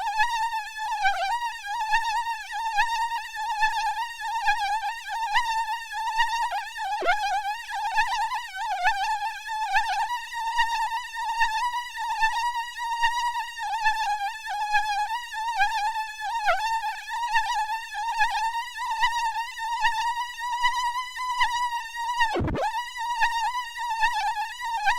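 Mosquito buzz sound effect: a continuous high, wavering whine with overtones that swells and fades in regular pulses, as if the insect circles close to the ear. About 22 seconds in, the pitch briefly swoops sharply down and back up.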